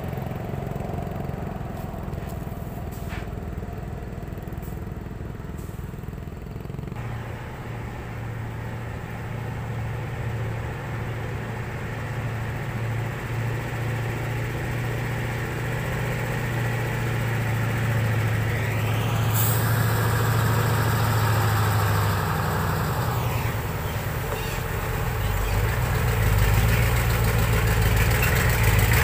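Heavy diesel trucks on a road: a steady low engine drone builds from about seven seconds in, one vehicle passes close with road noise swelling and falling away around the middle, and another approaches louder near the end.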